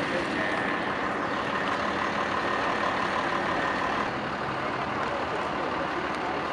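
Road traffic: cars driving past with steady engine and tyre noise, a faint high tone dropping away about four seconds in, after which it is a little quieter.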